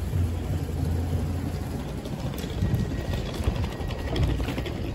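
Steady low hum of a stopped Stadler electric train's on-board equipment while it stands at the platform.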